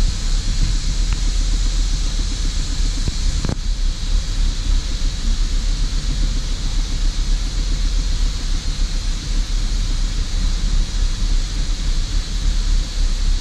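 The Holden VZ Crewman's 3.6-litre V6 idling roughly, heard from inside the cab as a low, uneven rumble over a steady hiss. The mechanic suspects a vacuum leak, with a lot of unmetered air getting in. There is a single click about three and a half seconds in.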